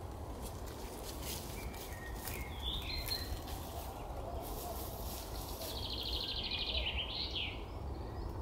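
Short scraping strokes of a knife shaving a small wooden stick, with small birds calling; a fast trill of chirps comes about six seconds in.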